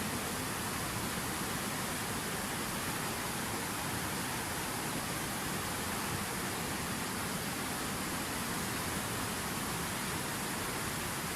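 Water from a fountain falling and splashing in a steady, unbroken rush.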